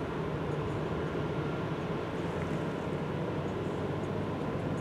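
Steady low drone of a container ship's engines heard from a distance across the harbour as the ship manoeuvres slowly in to dock.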